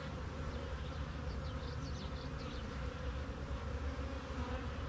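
Honeybees from an opened hive buzzing steadily, a dense colony hum.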